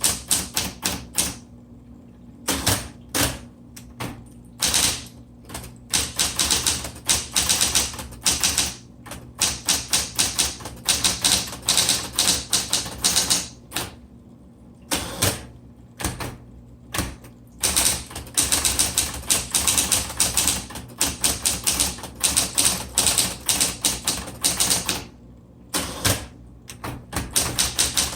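Smith Corona Coronet Automatic 12 electric typewriter being typed on: runs of rapid key strikes broken by short pauses, over the steady hum of its running motor.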